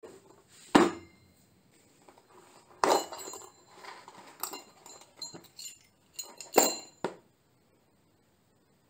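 A hole saw set in a plastic case being handled: the clack of the case and the clink of the steel hole saws knocking together as one is lifted out. There are three sharp knocks, about a second in, near three seconds and at about six and a half seconds, with lighter clicks between them.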